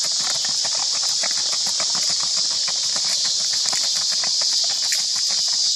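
Hooves of a Missouri Fox Trotter gaiting on a gravel path: a quick, continuous run of clopping hoofbeats. A steady high insect buzz sounds behind them.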